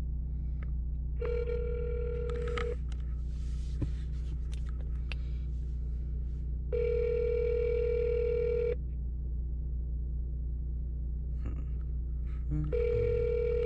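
Telephone ringback tone heard through a phone's speaker while an outgoing call waits to be answered. It rings three times, each ring about two seconds long with about four seconds between, over a steady low hum.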